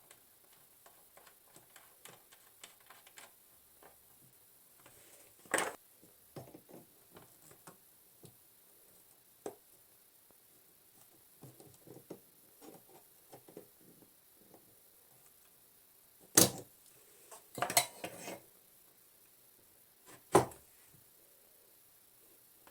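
Small metal clicks and scrapes of hand tools working on a bathroom faucet's stem, broken by a few sharp metal clanks, the loudest about two-thirds of the way in.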